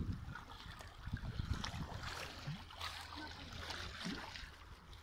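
Sea water washing against a rocky shore, with a low, fluttering rumble of wind on the microphone.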